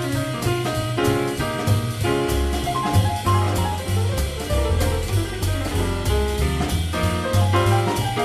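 Small-group jazz at a steady swing: a bass walking a line of low notes, a drum kit keeping time on the cymbals, and piano chords.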